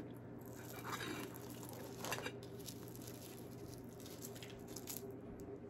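Flaky croissant being pulled apart by hand: faint, soft crackles and rustles of the pastry, the most noticeable about two seconds in, over a low steady hum.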